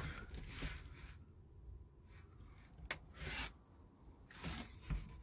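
Faint rubbing and scuffing of a toilet bowl being handled in its cardboard box: a few short scrapes, with a sharp click about three seconds in and another near the end.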